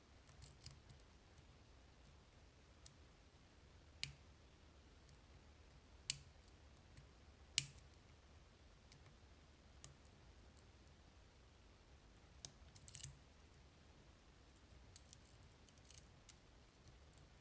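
Dimple lock picking: a flag pick and tensioner working the pins of an iNAHO Tierkey cylinder, with faint scattered metallic clicks and a few sharper clicks, three of them a couple of seconds apart and a quick cluster about two thirds of the way through.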